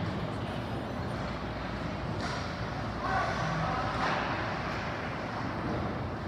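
Ice rink ambience during a hockey game: a steady hum of the arena with skates scraping across the ice, and a faint distant shout around three seconds in.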